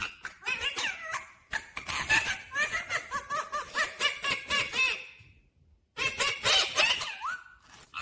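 Indian ringneck parakeet chattering in rapid runs of short, rising and falling calls. It breaks off for under a second a little past the middle, then starts again abruptly.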